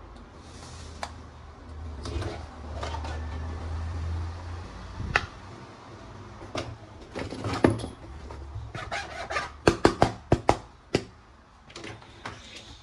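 Hard plastic toy parts being handled: scattered clicks and knocks, with a quick run of sharp, loud clicks about ten seconds in.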